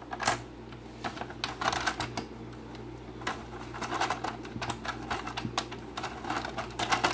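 Irregular plastic clicking and rattling from a Hot Wheels Atomix Wrecking Yard playset as its hand crank turns the auger, carrying a die-cast toy car up the clear tube.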